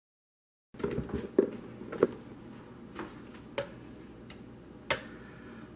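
A table knife scraping flour and tapping against a metal bread machine pan and a plastic measuring cup: sharp clicks about every half second to a second over a soft scraping, after a moment of dead silence.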